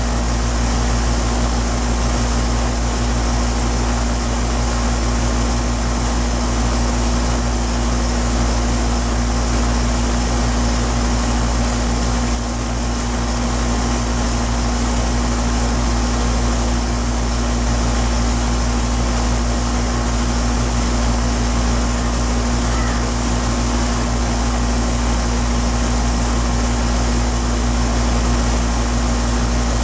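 2009 Payne 4-ton central air-conditioner condenser running steadily: the Copeland scroll compressor's hum and the condenser fan's rushing air.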